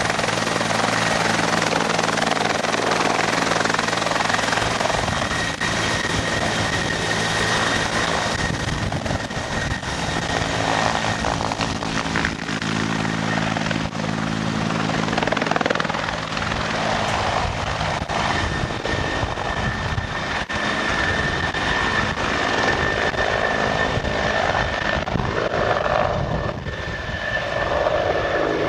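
Bell 412 twin-engine, four-blade helicopter running with a steady high turbine whine under the rotor noise, as it lifts off and climbs away.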